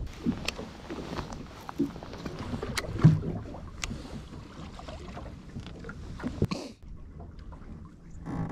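Sounds aboard a small boat at sea: a low rumbling haze with scattered knocks and clicks, and one louder thump about three seconds in.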